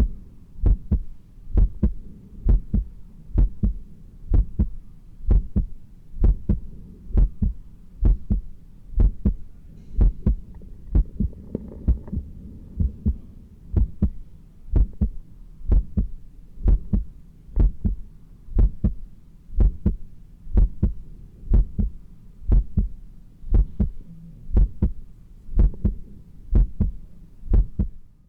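A human heart heard through a stethoscope on the chest during push-ups: a steady lub-dub rhythm of about one beat a second over a low hum. The heart is not beating fast but is pumping hard to meet the effort of the exercise.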